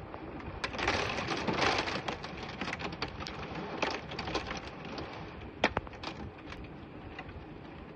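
Wind-driven rain of a severe thunderstorm, which the filmer believes is a tornado, rushing steadily with many sharp taps of things striking close by. It swells about a second in and eases toward the end, with one loud crack just before six seconds.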